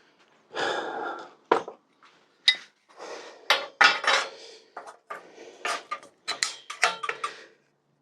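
Hammer striking a headset cup removal tool to drive a headset cup out of a steel bicycle head tube: a brief scrape, then about a dozen sharp metal blows that come faster in the second half.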